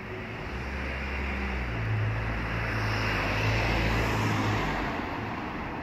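A road vehicle passing close by: a steady low engine hum and road noise that build to a peak about two to four seconds in, then ease off as the hum stops.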